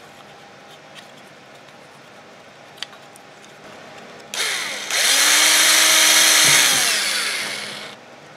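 Cordless drill/driver turning its bit in a small screw in a 3D-printed plastic bracket: a short blip of the motor, then a run of about three seconds whose pitch rises, holds and winds down.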